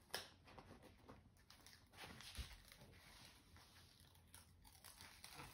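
Near silence, with faint rustling and light ticks as a diamond painting canvas is handled and smoothed flat.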